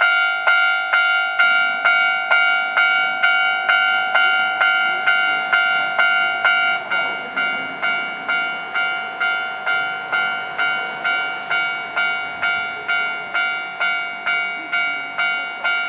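Japanese railway level-crossing warning bell ringing its repeated 'kan-kan' strokes, about two a second, evenly and without let-up.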